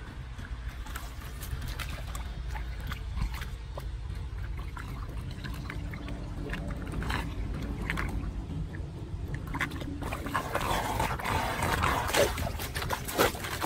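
Floodwater gurgling and sucking down a street drain in a swirling vortex, with hands splashing in the water as they pull debris from the opening. The splashing and gurgling grow louder and busier in the last few seconds.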